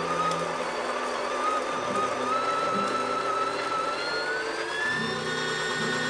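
DeLonghi Dedica KG521 conical burr grinder running, a steady motor whine that climbs in pitch about four seconds in.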